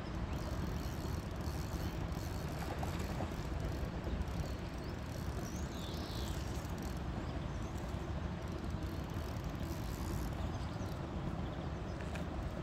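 Steady low rumble of outdoor background noise, with nothing distinct standing out.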